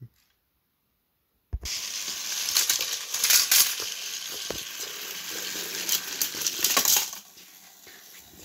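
Battery-powered toy train engines running on plastic track: a steady whirring hiss with many small rattling clicks. It starts suddenly about a second and a half in and drops much quieter about seven seconds in.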